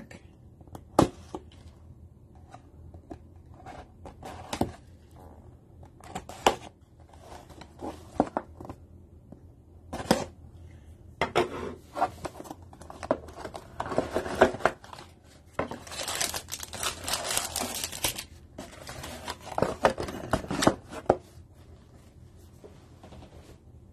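A cardboard trading-card booster box being opened by hand and its foil packs taken out: scattered taps and clicks of handling at first, then bursts of tearing and rustling, the longest about two-thirds of the way through.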